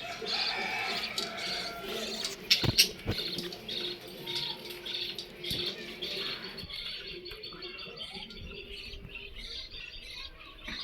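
Pet birds in a cage chirping and twittering, with a couple of sharp knocks about three seconds in.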